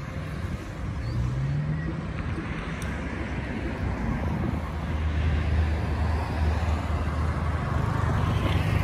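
Road traffic on a highway: a steady hum of passing cars with engine drone, one engine rising in pitch about a second in.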